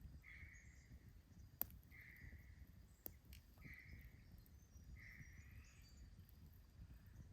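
Faint animal call repeating about every one and a half seconds, each a short, slightly falling note, with two sharp clicks partway through over a low outdoor rumble.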